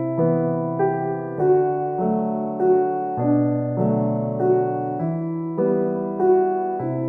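Background music: a gentle piano melody playing notes about every half second over sustained lower notes.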